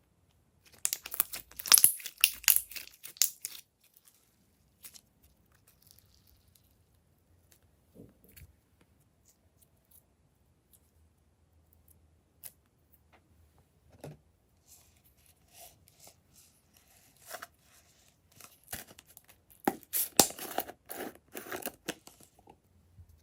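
Glossy slime being handled, giving dense crackling and clicking pops in two bursts, one near the start and one near the end, with scattered single clicks between.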